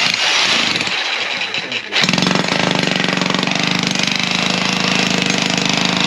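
Electric breaker (demolition hammer) hammering rapidly into old concrete, breaking out the footing of a concrete fence post. It falters briefly about two seconds in, then runs on steadily.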